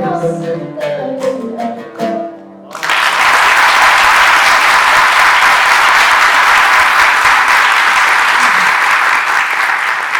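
The last notes of a song's instrumental accompaniment die away, and about three seconds in a crowd breaks into loud, steady applause.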